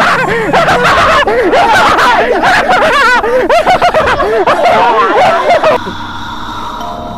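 Several people shouting and yelling over one another in a scuffle, mixed with snickering laughter. It cuts off suddenly about six seconds in, leaving a much quieter background.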